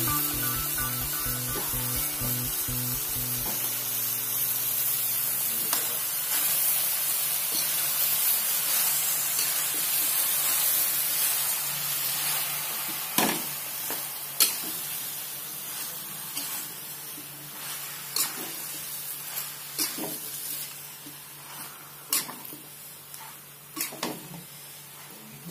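Bok choy and chicken sizzling as they are stir-fried in a hot wok, the sizzle slowly dying down. From about halfway on, a metal spatula scrapes and knocks against the pan in sharp clacks.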